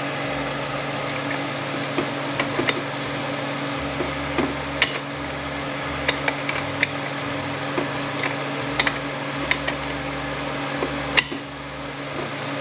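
Light metal clicks and taps, scattered and irregular, from parts of a T5 manual transmission being handled and fitted together, over a steady machine hum; the sharpest click comes near the end.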